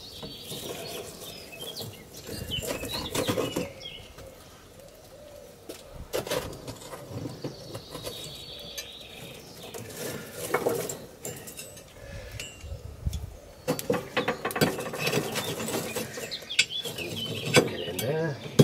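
Irregular clinks and rattles of coal lumps and steel pliers being shifted in a small coal forge fire as the railroad spike is set in to heat. Birds chirp now and then.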